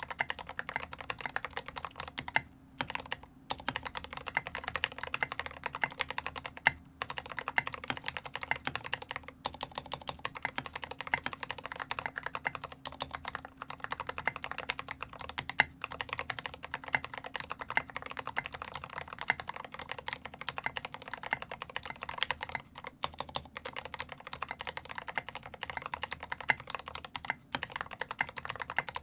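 Continuous typing on a LifeZone IRON Antique custom mechanical keyboard with lubed Gateron Ink Black linear switches, a brass plate and SA-profile keycaps: a dense, steady stream of keystroke clacks with a few brief pauses.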